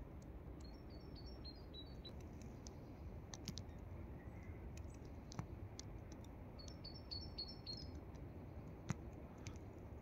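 A small songbird singing a short phrase of quick, high notes stepping downward, twice, over a low rumble, with scattered faint clicks.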